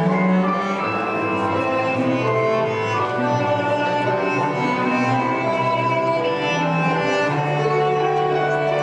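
Slow waltz music for ballroom dancing: a string arrangement with cello and violin playing long held notes.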